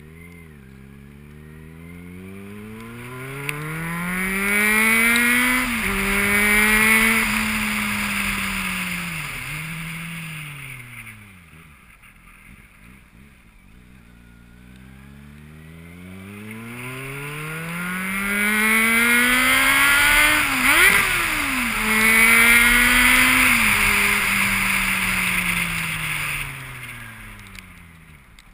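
Two motor vehicles going by one after the other, each engine accelerating with its pitch rising, stepping down at a gear change, then dropping and fading as it moves off. The first is loudest about six seconds in and the second about twenty-one seconds in.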